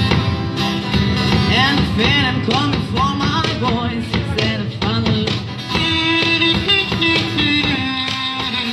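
Live acoustic duo playing a rock-style song: acoustic guitar strummed in a steady rhythm, with a singing voice carrying the melody.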